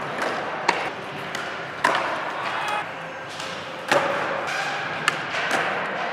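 Skateboards on a concrete floor: sharp clacks of the tail popping and the board and wheels slapping down, about five times, with the ring of a large hall, over the chatter of onlookers.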